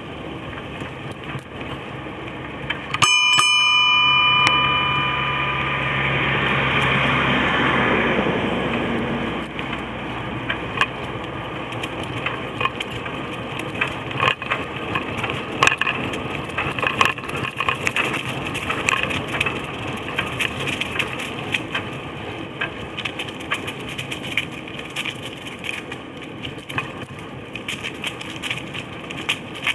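A bicycle bell rings once about three seconds in and rings out over a couple of seconds. Underneath, the cruiser bicycle rattles and clicks steadily as its tyres run over a leaf-strewn path, with a rushing hiss that swells and fades soon after the bell.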